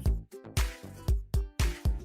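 Upbeat funk/disco-style background music with a steady beat, a deep kick drum hitting about twice a second under bright cymbal hits and held synth notes.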